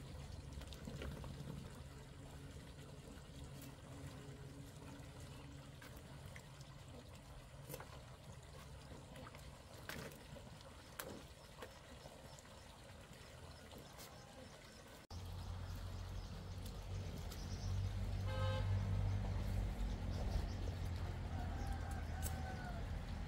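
Faint outdoor background with a few light clicks and rustles as luffa are handled on the vine trellis. About two-thirds of the way through it changes abruptly to a steadier low hum, with one short pitched sound and, near the end, two brief rising-and-falling tones.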